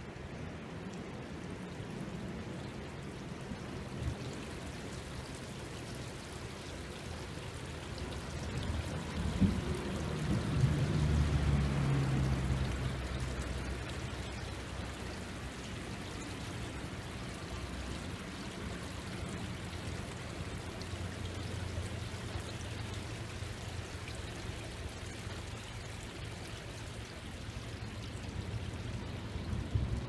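A small stream running over a shallow step in its bed, a steady babble and splash of water. About ten seconds in, a low rumble swells for a few seconds and fades.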